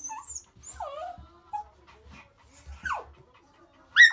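A small dog whining in short, high whimpers that fall in pitch, ending in a sharp, loud rising yelp about four seconds in.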